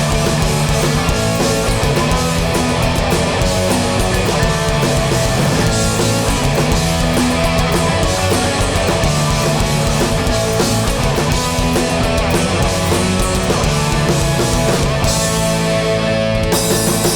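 Hardcore punk band playing live at full volume, distorted electric guitars over bass and drums, in the instrumental close of a song with no vocals.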